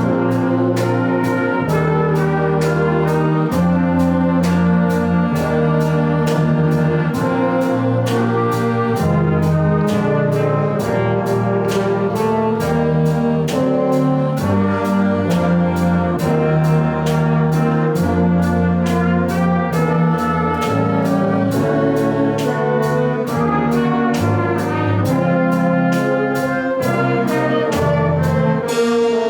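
Brass ensemble of trumpets and trombones playing a tune in sustained chords over a bass line, with a steady percussion beat.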